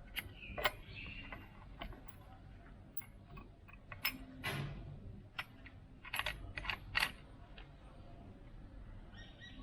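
Scattered small metallic clicks and clinks of the exhaust mounting clamp, bolts and washers being handled while a bolt is threaded in by hand, with a short run of sharper clinks about six to seven seconds in.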